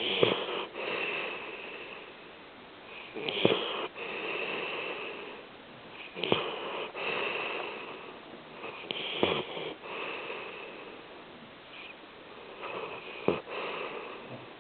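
A sleeping pet snoring: a slow breath about every three seconds, each opening with a sharp click and trailing off into a hissing rasp.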